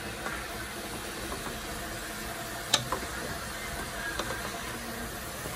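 Chicken drumsticks sizzling with a steady hiss in a steel pot as they are stirred with a wooden spoon; the spoon knocks sharply against the pot once about three seconds in, with a few lighter taps after.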